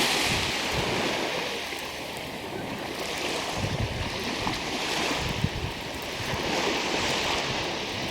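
Black Sea waves washing onto a pebble beach. The surf hiss swells and fades with each wave, about every two to three seconds.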